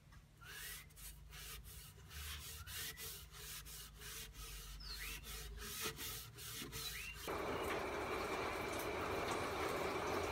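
Cloth rag rubbing wood stain into a wooden board in repeated strokes, with a few faint short rising chirps. About seven seconds in this gives way abruptly to a steady, louder hiss.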